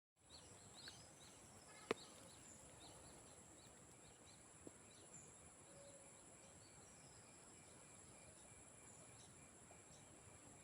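Swamp night ambience: a steady, high-pitched chorus of crickets, with faint short bird chirps in the first few seconds. One sharp click about two seconds in, and a smaller one near five seconds.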